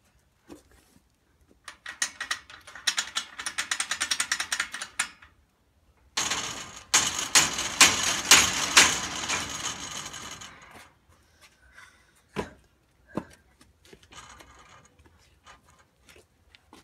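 Iron bars of an old zoo cage rattling in two long runs of rapid metallic clanks, the second louder, as a child grips, shakes and climbs them. A couple of single knocks on the bars follow.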